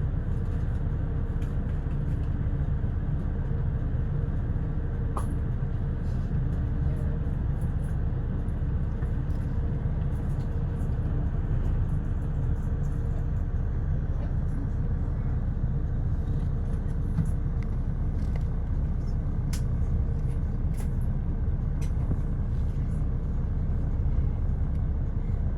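Steady low rumble of an intercity bus on the move, engine and road noise with a faint hum held at one pitch.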